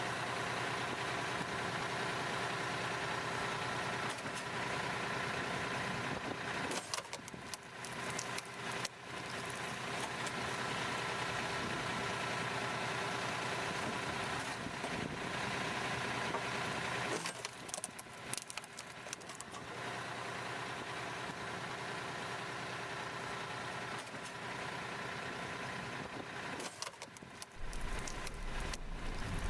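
Tractor engine running steadily while driving a PTO hydraulic log splitter, its hum broken three times by short stretches of uneven, crackly sound.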